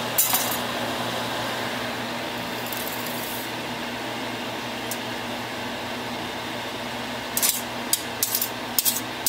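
Steady kitchen fan hum, with frozen peas tipped into a pot of potatoes and broth, then a metal spoon clinking against the pot in quick knocks near the end as the stirring begins.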